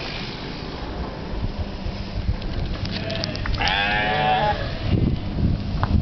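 A sheep bleating once, a quavering call about a second long a little past halfway.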